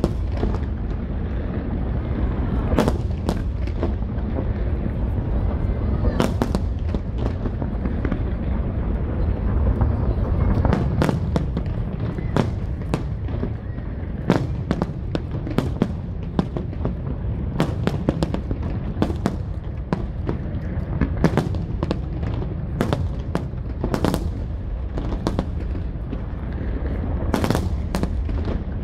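Aerial fireworks display: a rapid, irregular run of sharp bangs and crackles, several a second, over a continuous low rumble of shell bursts.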